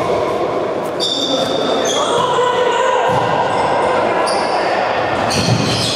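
Indoor futsal game: the ball being kicked and bouncing off the court floor, with players calling out, all echoing around a sports hall.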